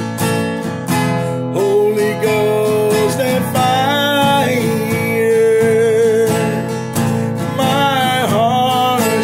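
A man singing over a strummed acoustic guitar, holding long wavering notes about four seconds in and again near the end.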